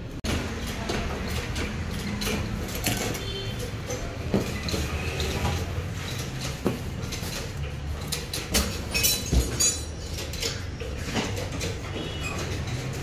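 Workshop clatter: irregular knocks, taps and light metallic clinks of parts and tools being handled, over a steady low hum, with a busier run of knocks about nine seconds in.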